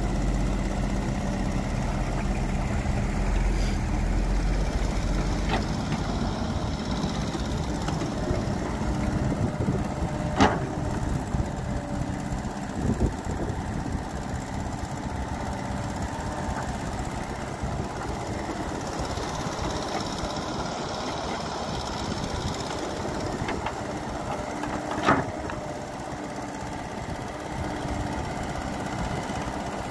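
Caterpillar hydraulic excavator's diesel engine running steadily under load while it digs and loads earth into a dump truck. There are sharp metallic clanks about ten seconds in, again about thirteen seconds in, and a loud one near twenty-five seconds.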